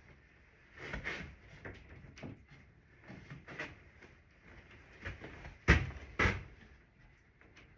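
Irregular wooden knocks and clunks as boards are handled and set in place on a workbench frame, two louder knocks close together near the end.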